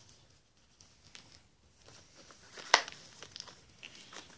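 Hands working at a DVD box set's packaging to get it open: faint rustling and small clicks, with one sharp snap a little past halfway through.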